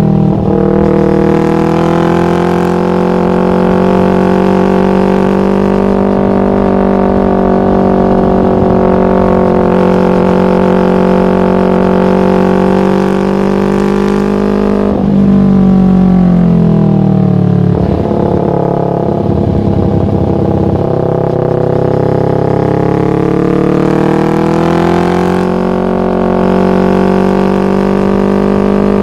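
Yamaha MT-25's parallel-twin engine through a Shadux aftermarket racing exhaust, holding steady revs with a droning note. About fifteen seconds in the revs drop away and the note roughens, then it climbs back to the same steady pitch some ten seconds later.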